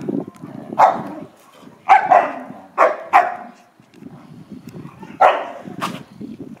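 An American Akita and a Chow Chow barking while they play-fight: about six sharp barks, bunched in the first few seconds with one more about five seconds in, and a rough, lower sound between them.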